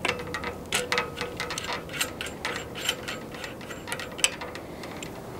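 Irregular sharp clicks and crackles, several a second, from a small hand cutter snipping and pulling at the vulcanizing and UV-resistant tape wrapped over a coax connector; one click about four seconds in stands out as the loudest.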